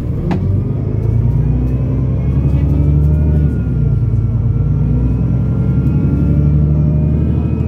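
Otokar Kent C12 city bus accelerating, its engine and drivetrain rumbling with a whine that rises and then holds, heard from inside the passenger cabin. The sound dips briefly about three and a half seconds in, then builds again. There is a sharp click just after the start.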